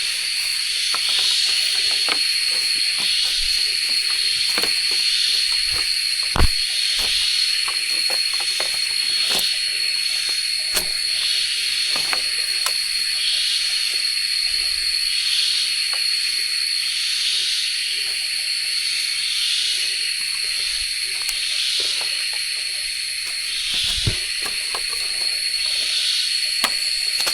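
Chorus of forest insects: a steady high-pitched drone with a softer call pulsing about once a second. A few sharp knocks break in, the clearest about six seconds in and again near the end.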